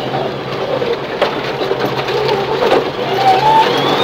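Subaru Impreza rally car's engine running steadily at speed on a gravel stage, heard from inside the cabin with a constant rush of tyre and gravel noise and a few sharp knocks, about a second in and near three seconds.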